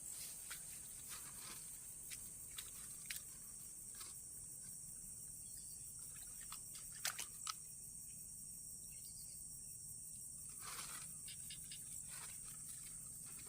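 Insects buzzing steadily in a high, even drone, with scattered soft clicks and a brief rustle about eleven seconds in.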